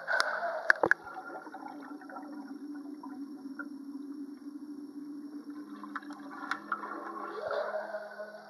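Swimming-pool water heard at and below the surface: sloshing and gurgling, with a few sharp splashes in the first second.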